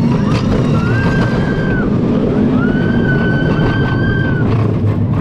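Small family roller coaster running along its track, a steady loud rumble of the cars and wheels, with two long, high, held squeals over it, the second longer.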